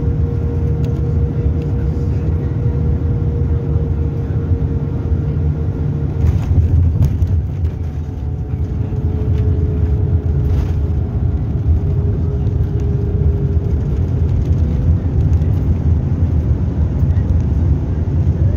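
Airbus A300 cabin noise during landing: a steady low rumble of the engines and airframe, with a faint steady engine whine that fades out about six seconds in. A couple of short knocks come through, one about six seconds in and one near the middle.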